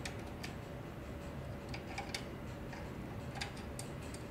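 Irregular light clicks and ticks of a screwdriver working on the screws and metal-and-plastic parts of a photocopier's registration transport assembly, about eight in all, with a cluster around two seconds in and again after three seconds.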